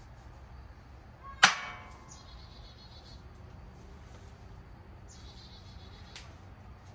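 A single sharp metallic snap about a second and a half in, with a brief ring: the folding handlebar stem latch of a Lectric XP e-bike clicking shut as the stem is locked upright. A smaller click follows a few seconds later.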